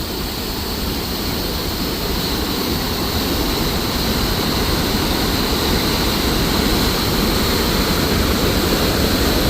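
Steady rushing roar of Nevada Fall on the Merced River, a big waterfall heard from the trail, slowly growing louder.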